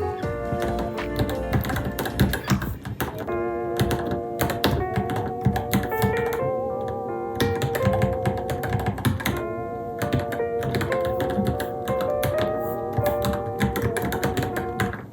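Rapid, continuous typing on a Varmilo Minilo mechanical keyboard, a dense run of key clicks, over background music with a melody.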